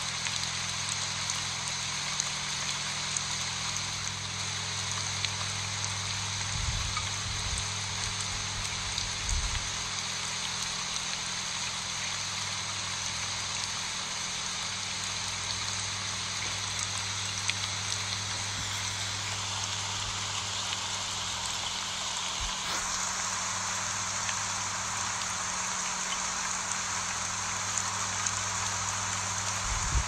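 Steady rain falling on broad elephant-ear leaves: a continuous even patter with scattered sharper drop ticks.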